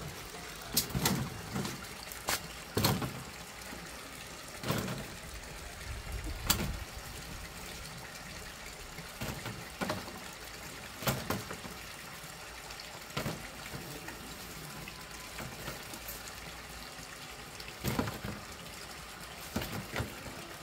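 Passion fruit picked up by hand and dropped one or a few at a time into a plastic crate: irregular knocks of fruit landing on the crate and on other fruit, a dozen or so spread unevenly, over a steady faint hiss.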